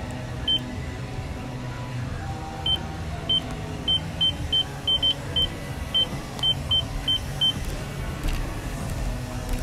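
Gym exercise machine console beeping as its buttons are pressed: about fifteen short, identical high beeps in quick, irregular succession, over a steady low hum.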